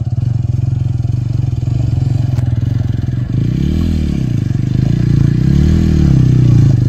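Motorcycle engine running under load, then revving up and down in three swells about a second and a half apart as the rear tyre spins for grip on a slippery rocky climb.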